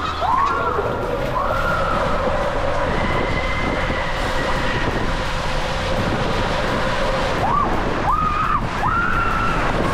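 Rushing water and wind noise of a ride down a water slide. The riders scream several times: a long held scream through most of the ride, with shorter rising yells near the start and again near the end.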